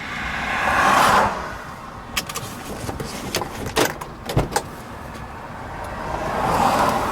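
Two cars driving past on the road, each a swell of tyre and engine noise that rises and fades: one about a second in, the other near the end. A few sharp clicks or knocks fall between them.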